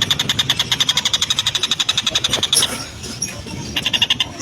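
Oriental dollarbird (tengkek buto) giving its harsh, rapid chattering call, about ten notes a second. One run lasts about two and a half seconds, then breaks off, and a second run starts near the end.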